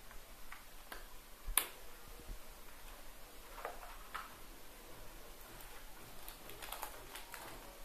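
Hard plastic clicks and snaps from a toy transforming robot car as its parts are moved by hand: one sharp snap about one and a half seconds in, a few lighter clicks, and a cluster of clicks near the end.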